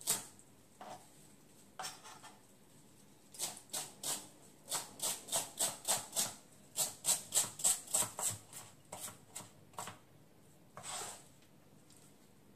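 Kitchen knife chopping fresh coriander on a plastic cutting board. A few scattered chops lead into a steady run of quick chops, about three a second, that stops near ten seconds, with one more chop after a pause.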